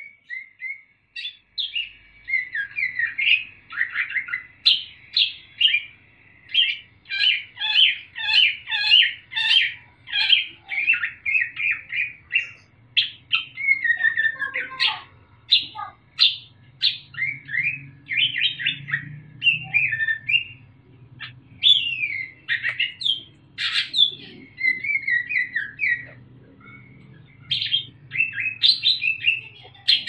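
Caged Sumatran greater green leafbird (cucak ijo) singing its fast, loud chattering 'ngriwik' song of short high notes, with imitated calls of other birds worked in; the song pauses briefly a few seconds before the end.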